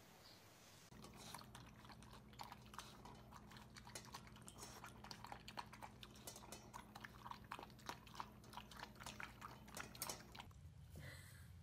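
A cat eating from a metal bowl, chewing with quick, irregular crunches, over a steady low hum. The crunching starts about a second in and stops about a second before the end.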